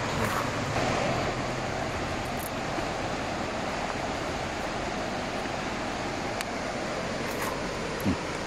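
Steady rushing noise, even and unbroken, with a couple of faint ticks about six and seven seconds in.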